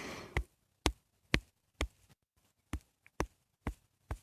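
A breathy sigh trails off at the start, then a steady run of short, sharp taps, about two a second, with a gap of about a second near the middle.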